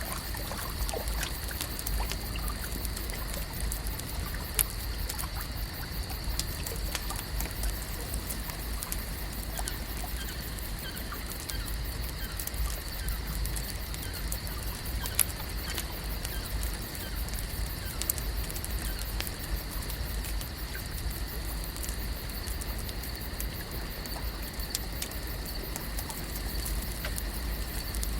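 Lake ambience: water gently trickling and lapping over a low rumble, with a steady high-pitched hum and scattered faint ticks, a few of them sharper.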